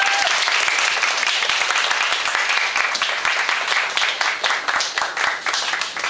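Audience applauding: dense clapping that thins into scattered separate claps near the end.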